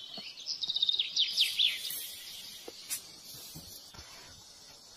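High-pitched bird-like chirping: a quick run of short, falling chirps in the first two seconds, then a faint high hiss.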